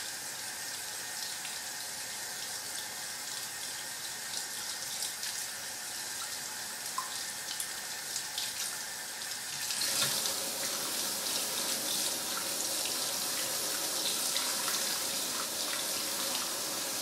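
Bathroom sink tap running warm water, splashing over a CD being rubbed under the stream to rinse off toothpaste; the splashing gets louder about ten seconds in.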